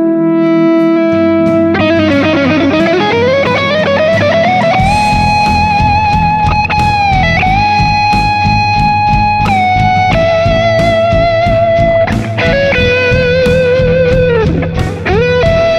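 Electric guitar lead played through a Kemper Profiling Amp: long sustained single notes with a slow upward string bend about three seconds in, held notes, and vibrato with a quick dip and return near the end. A backing track with bass and drums plays underneath, the drums joining about five seconds in.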